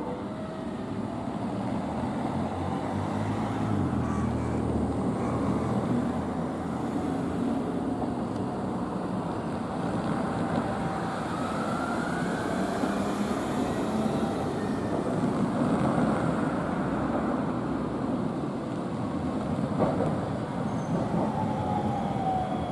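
Iyotetsu Moha 5000-series low-floor tram running toward the listener on street track over steady road-traffic noise. Its motor whine rises briefly around the middle, there is a single clunk near the end, and a falling whine follows as the tram slows.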